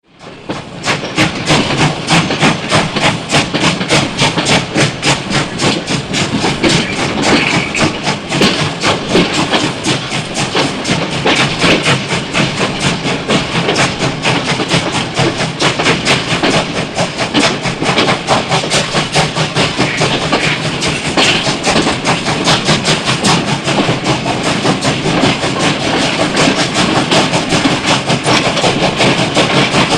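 Steam train running, with a rapid, even rhythm of beats over a steady rush of noise. The sound fades in within the first second.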